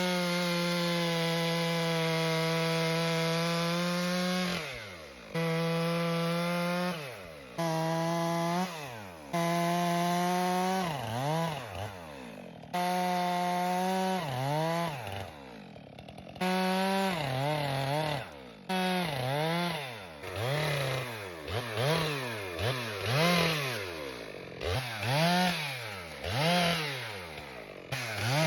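Stihl MS 462 two-stroke chainsaw cutting the dead ponderosa pine: held at full throttle at first, then repeatedly dropping toward idle and revving back up, with quick rev-ups about once a second near the end.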